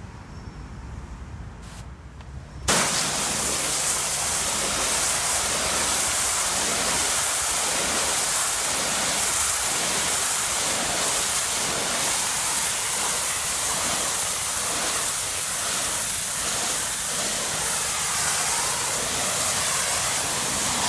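Hot high-pressure washer jet spraying a brick wall to strip off spray-paint graffiti: a loud, steady hiss of water that starts suddenly about three seconds in.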